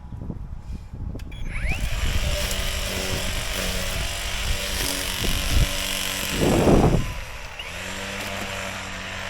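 Small gas engine starting about a second and a half in, then running steadily, with a brief loud rush about six and a half seconds in. Wind buffets the microphone before it starts.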